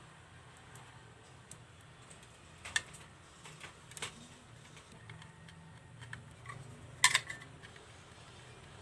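Small sharp metallic clicks and taps of screws and a small screwdriver as a drive mounting bracket is screwed onto an SSD, a few scattered clicks with the loudest cluster about seven seconds in, over a faint low hum.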